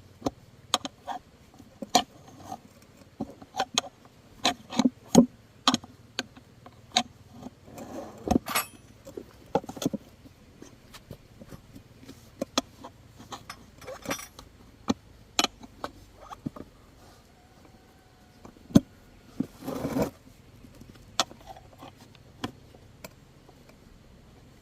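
Irregular sharp clicks, clinks and knocks of hand tools and motorbike wheel parts being handled during a tyre and inner-tube repair, with a short scraping rasp near the end.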